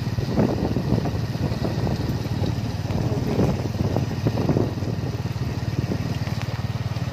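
Motorcycle engine of a tuk tuk running steadily as it drives along, a fast low pulsing, with irregular knocks and rattles over it.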